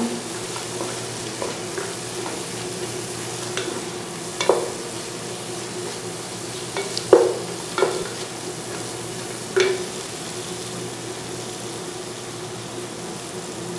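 Onion-tomato masala with cashews frying in oil in a nonstick pot, sizzling steadily as a wooden spatula stirs and scrapes it. A few sharp knocks of the spatula on the pan come through, the loudest about seven seconds in. The masala has fried to the point where the oil separates out.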